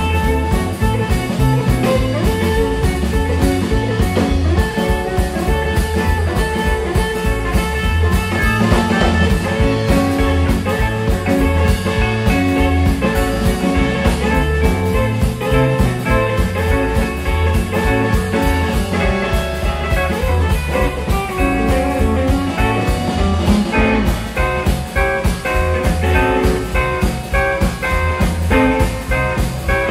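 A live blues band playing an instrumental boogie: electric guitars over bass guitar and a drum kit keeping a steady beat.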